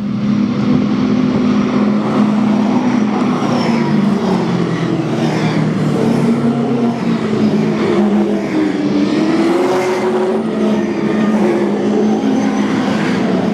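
V8 SuperTourer race cars' V8 engines running together, a steady loud drone that wavers and shifts in pitch from about halfway through as the engines rev.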